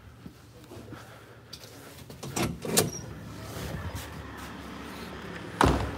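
A shop door being unlatched and pushed open with two sharp clacks a little after two seconds in. A steady rush of outdoor noise follows, then a single heavy thud near the end as the door swings shut.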